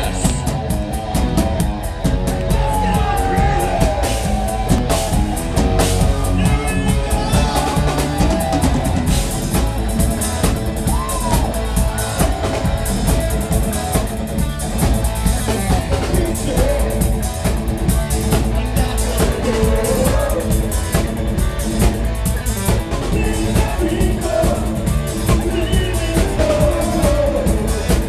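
Live rock band playing loud: male and female vocalists singing over a pounding drum kit, bass and electric guitar.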